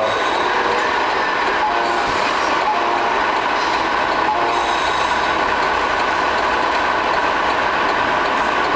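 Simulated diesel engine running and air-horn toots from the sound units of scale RC semi trucks, a steady hum with short horn-like tones now and then.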